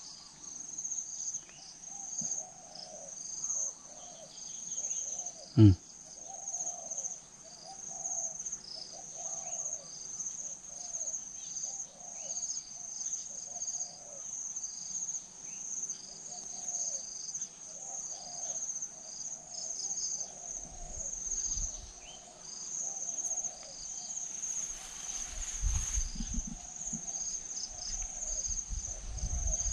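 Spotted doves cooing in short low phrases, repeated over and over: a wild dove answering a caged decoy. Under them runs a steady high-pitched insect drone. A single loud thump with a falling pitch comes about six seconds in, and low rumbling sets in over the last several seconds.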